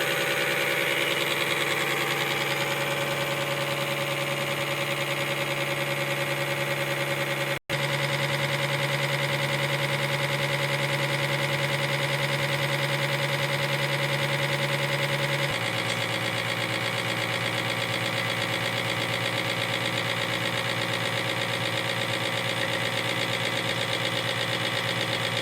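NT619 test bench driving a Caterpillar HEUI pump, running steadily with a fast even pulsing and several steady tones. It cuts out for an instant about a third of the way in, and a little past halfway the running steps down to a lower pitch, a change of drive speed.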